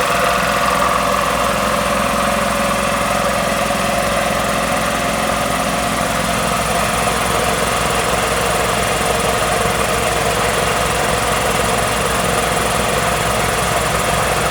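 Magna Force two-stage electric air compressor running steadily on a repair test run, its pump working and blowing out a lot of air.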